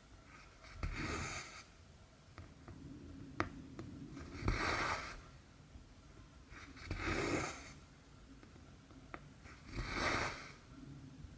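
Cotton embroidery thread drawn through 11-count cross-stitch fabric with a short rasping swish, four pulls about every three seconds, with a few small needle clicks between them.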